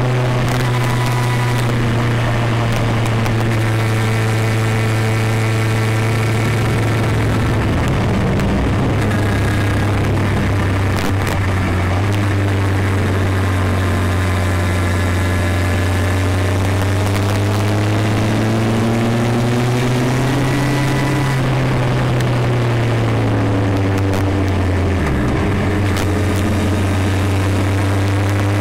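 Motorcycle engine running under load on an uphill ride, its pitch dropping about eight seconds in, climbing slowly and falling again a little after twenty seconds as throttle and gears change, over steady wind and road noise.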